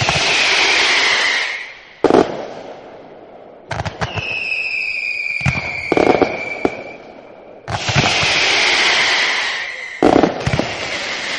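Fireworks going off: sharp bangs scattered through, two long hissing showers, one at the start and one about two-thirds in, and a high whistle that slides slowly down in pitch through the middle.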